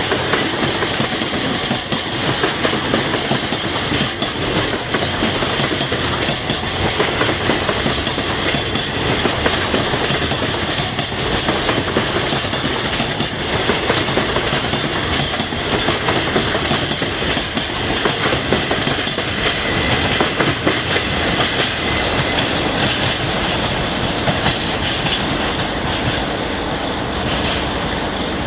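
Freight train cars rolling past, their wheels clattering steadily over the rail joints in a dense run of clacks.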